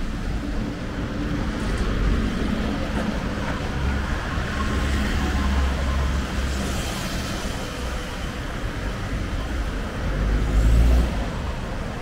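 Road traffic with vehicle engines running. A louder low rumble swells near the end.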